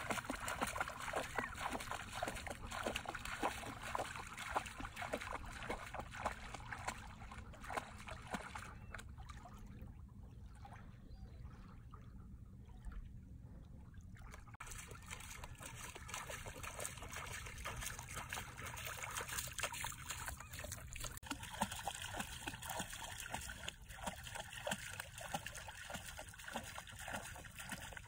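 An Airedale terrier wading through shallow seawater, its legs splashing and sloshing with each step, with a quieter pause about midway.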